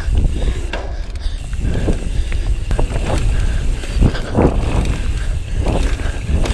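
Mountain bike riding fast down a dirt trail: wind buffets the microphone and the tyres rumble over the ground. Frequent clicks, knocks and rattles come from the bike as it runs over bumps.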